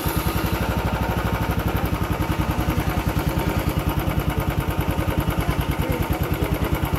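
Royal Enfield Bullet BS6 UC single-cylinder engine idling steadily with an even, rapid beat, just after a tappet-noise repair. A freshly fitted hydraulic lifter is not yet full of oil, and the mechanic expects the tappet sound to settle to normal after 4–5 km of riding.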